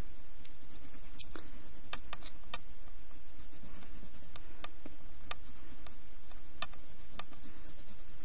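Wax crayon rubbing on paper as an area is colored in, soft scratchy strokes with scattered small ticks.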